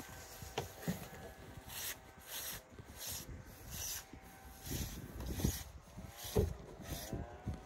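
Footsteps crunching and packing in deep snow as a person climbs snow-covered steps, about two crunches a second, with a few dull thuds.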